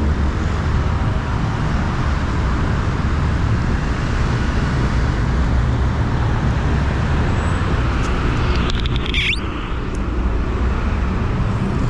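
Busy city street traffic: a steady rumble of engines and road noise, briefly dropping off about nine seconds in.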